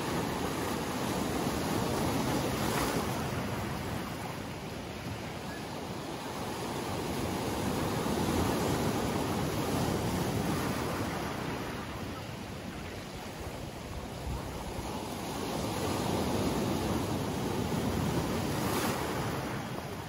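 Sea waves breaking around boulders and washing up a pebble beach, the surf swelling and easing three times.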